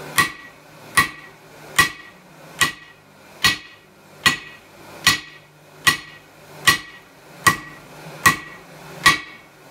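Hand hammer striking red-hot steel on an anvil at a steady pace, about twelve blows at roughly one every 0.8 seconds, each with a short metallic ring. This is drawing out the edge of a forged drawknife blank.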